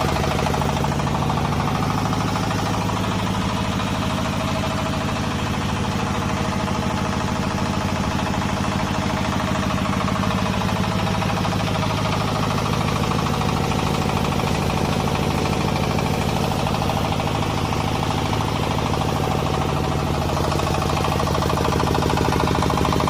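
FFC-45 multipurpose flour mill running steadily, a constant machine hum and rattle that stays the same throughout.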